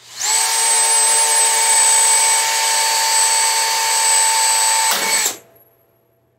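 Cordless drill running at a steady pitch for about five seconds, drilling a hole in the mower's engine cover. A brief clatter just before it stops, likely the bit slipping in the chuck.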